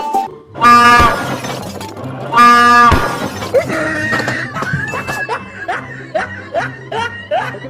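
Two loud, steady blasts of a prank train horn, each about half a second long, the second coming about two seconds after the first. A run of short rising squeals follows, about two a second.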